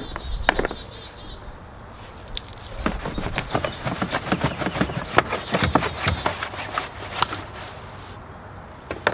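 Brush scrubbing a soapy car tire and wheel: a run of quick scratchy bristle strokes starting about three seconds in and lasting several seconds.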